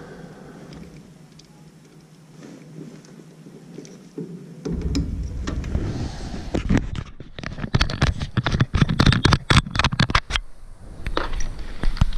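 Handling noise at an opened furnace: rustling, scraping and a rapid run of sharp clicks as test leads, wiring and tools are moved by hand, over a low rumble that sets in about a third of the way in.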